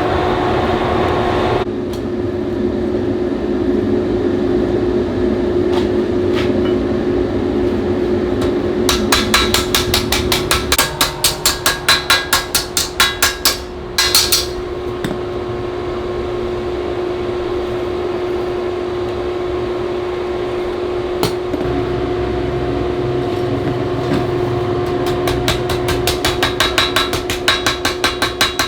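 Hammer striking steel being forged into a knife blade, in quick runs of about three to four blows a second, over a steady machine hum.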